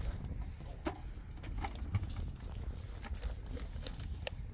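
Wind rumbling on the microphone, with scattered light clicks and clinks of camp gear being handled.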